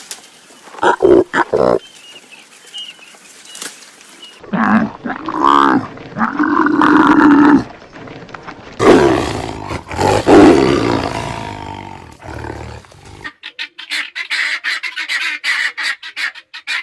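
A string of different animal calls. A few short cries come first, then two long, loud calls starting about four and a half and nine seconds in. From about thirteen seconds a dense chatter of many overlapping calls takes over.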